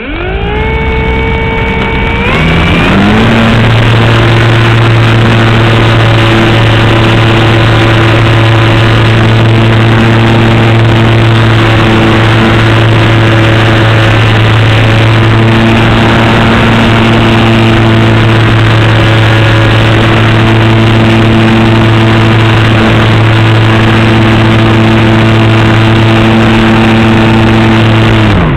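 A model airplane's motor and propeller, heard up close from a camera on the plane, spinning up with a rising pitch over the first few seconds, then running at a loud, steady full-throttle drone through the takeoff and climb. Near the end the sound drops away sharply as the throttle is cut back.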